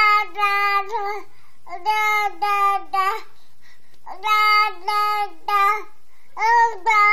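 A toddler babbling in a sing-song voice: strings of short syllables held on one high, level pitch, in phrases of a second or so with short pauses between.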